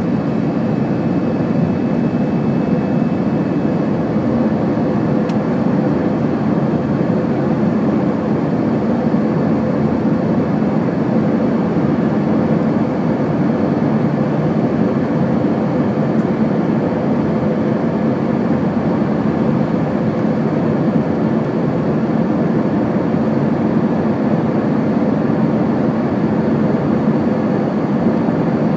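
Steady cabin noise of an Airbus A321-200 airliner in flight: constant jet engine and airflow noise with a low steady hum, unchanging throughout.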